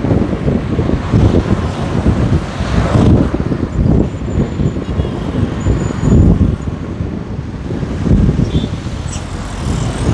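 Traffic and road noise heard from a moving vehicle, mixed with wind buffeting the microphone in uneven gusts of low rumble.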